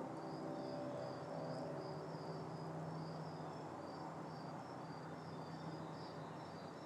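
Crickets chirping in a steady, even rhythm of short high chirps, over the faint low drone of a distant aircraft engine that fades over the first few seconds.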